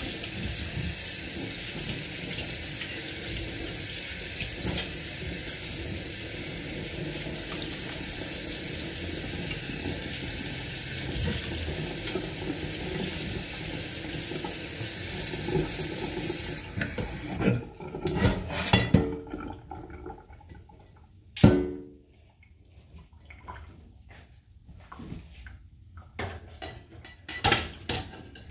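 Kitchen tap running steadily into a stainless steel sink while hands wash under the stream. About two-thirds of the way through the water stops. Scattered clinks and knocks of dishes and utensils follow, with one sharp loud knock.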